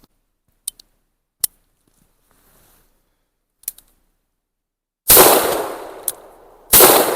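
A Cimarron single-action .45 Colt revolver: a few light metallic clicks from the action, then two loud shots about a second and a half apart, each with a long echoing tail. The hammer is being fanned, which gets it to fire after it had been failing to set off rounds.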